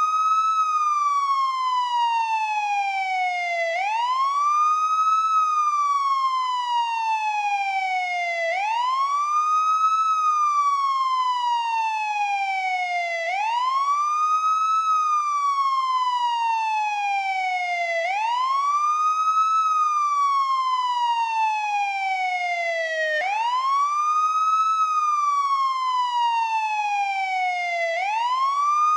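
Police car siren in wail mode, sweeping up quickly and then falling slowly in pitch, over and over, about one full cycle every five seconds.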